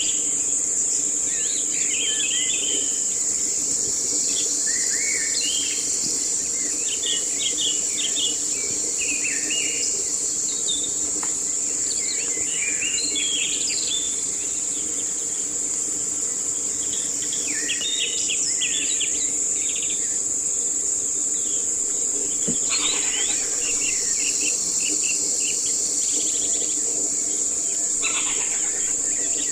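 Insects holding a steady high-pitched drone, with many birds chirping in short calls over it and a faint low steady hum underneath.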